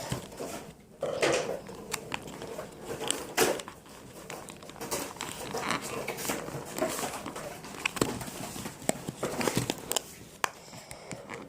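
A small product box being handled while someone picks at its seal to get it open: irregular crinkling and rustling with small clicks and scrapes.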